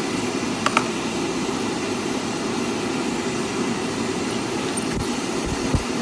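Stain-removal spotting equipment running steadily, a low even machine hum, with a couple of light clicks just before one second in.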